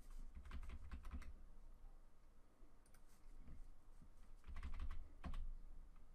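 Quick clicks from computer keyboard keys and a mouse button, in two short clusters: one in the first second and another between about four and a half and five and a half seconds in.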